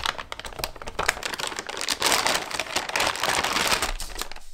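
A clear plastic filament storage bag crinkling and rustling as a filament spool is handled in it, with many small crackles and taps, busiest in the second half.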